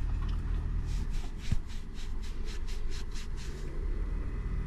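A wet wipe rubbed quickly back and forth over a hairy leg, about five scratchy strokes a second for a couple of seconds, over a steady low hum.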